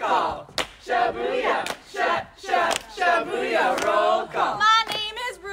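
A small group chanting in rhythm, shouted call-and-response, with hand claps about once a second on the beat. A single higher voice comes in near the end.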